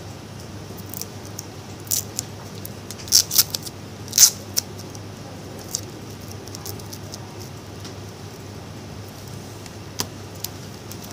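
Small sharp clicks and taps of metal tweezers and small parts against the phone's metal frame and internals during disassembly, a quick cluster of them about three to four seconds in and one more near the end, over a low steady hum.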